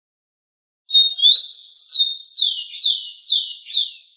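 Rufous-collared sparrow (tico-tico) singing one song: about a second in, a short steady whistle and a rising slur, then five falling whistled notes about half a second apart.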